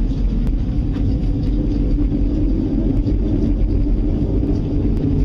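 Loud, steady low rumbling drone of unexplained origin, heard as something close by.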